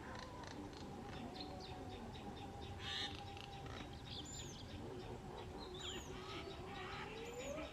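Birds calling in short, repeated high chirps, some with a falling hook, about one a second in the second half, over a faint wavering low drone.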